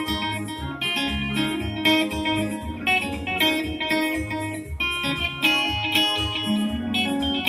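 Soukous groove on electric guitar, a fast run of bright picked notes, played with an electronic keyboard over a steady beat and bass.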